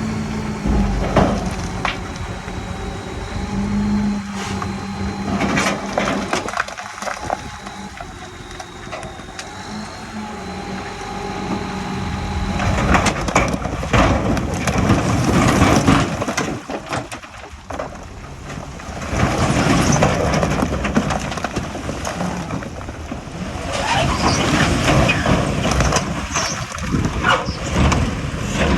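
Komatsu crawler bulldozer's diesel engine running under load, a steady engine tone for the first dozen seconds or so. After that, irregular crunching and clattering of soil and rock being pushed takes over, with the loudest stretches in the second half.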